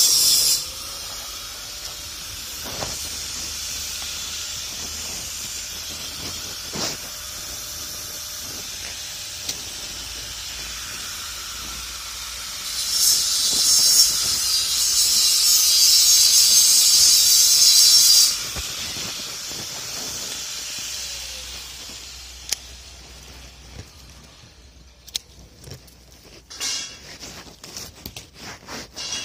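Electric grinder grinding steel: a steady high-pitched hiss that grows much louder for about five seconds past the middle. The motor then winds down, leaving only a few faint knocks near the end.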